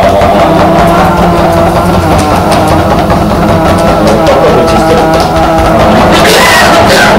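A man's overtone singing: a loud, steady low drone with its stack of overtones, over which a higher overtone shifts and glides in pitch now and then.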